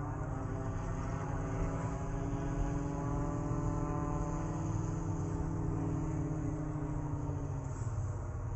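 An engine running steadily, its pitch rising slightly and then easing back down.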